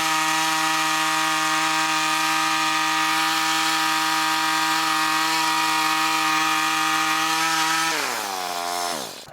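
Woodland Mills HM126 bandsaw mill's gas engine running steadily at high speed while the band blade takes the slab off a poplar log. About eight seconds in it is shut off, and its pitch falls as it winds down and stops.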